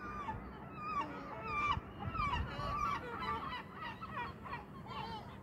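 Kittens mewing: many short, high calls in quick succession, some overlapping, thinning out near the end.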